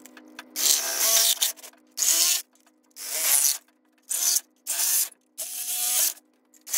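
Cordless Milwaukee FUEL power tool cutting through a plastic grille shell in about seven short, rasping bursts with brief pauses between them.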